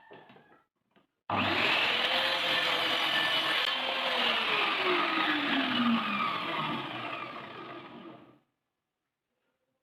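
A power tool running on wood, starting suddenly about a second in. Its pitch sinks in the middle, then it fades and stops near the end, after a few light knocks at the start.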